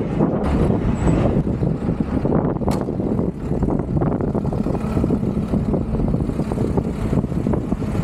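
Unimog U1300 truck's diesel engine running steadily under way, with a sharp knock about two and a half seconds in.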